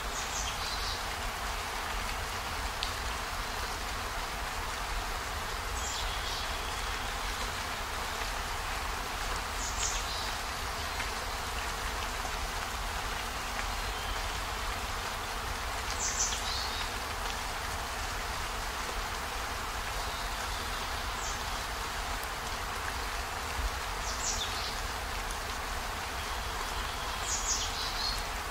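Steady rain hiss, with a brief high, falling sound every three to six seconds, about seven in all.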